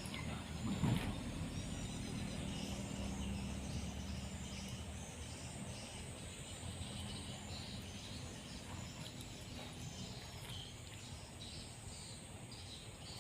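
Insects chirping in repeated high pulses over outdoor ambience, while a motor's low drone fades away over the first few seconds; a short louder noise comes about a second in.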